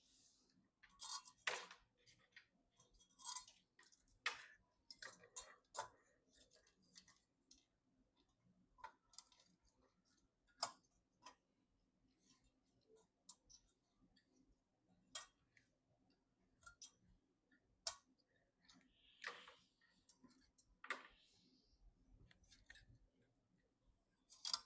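Irregular small clicks, taps and short scrapes of computer parts and cables being handled during PC assembly, about a dozen sharp clicks spaced unevenly, over a faint steady hum.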